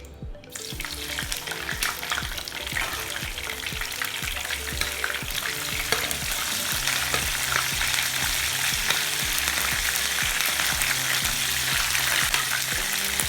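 Pieces of boiled meat frying in hot groundnut oil, sizzling and crackling with many small spattering pops. The sizzle starts suddenly about half a second in, as the meat goes into the oil.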